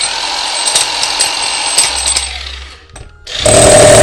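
Makita two-function rotary hammer (chisel and concrete hammer-drill) running with its hammer action going, in two runs: one of nearly three seconds, then after a brief stop a louder run starting just after three seconds.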